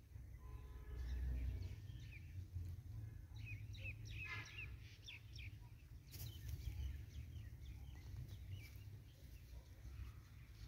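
Small birds chirping in quick short calls, busiest about three to five seconds in, over a steady low rumble. A brief crackle about six seconds in.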